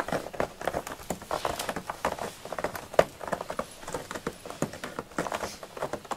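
A cat digging in its litter tray: a quick, irregular run of scratching and rattling of the litter granules under its paws, with one louder knock about three seconds in.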